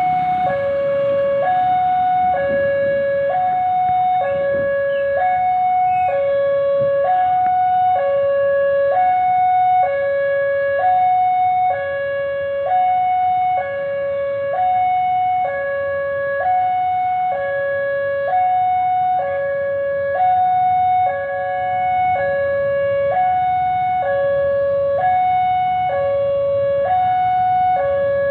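Railway level-crossing warning siren sounding continuously, switching back and forth between a higher and a lower tone in a steady hi-lo pattern, with a second alarm tone pattern sounding out of step with it.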